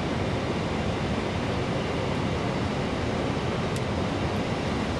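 Steady rushing of airflow and engine noise on the flight deck of a McDonnell Douglas MD-11 freighter in descent, even and unchanging, with one faint tick near the end.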